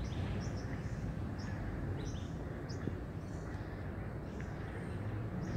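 Birds chirping: short high calls, about two a second, over a steady low background rumble picked up by a smartphone's microphone.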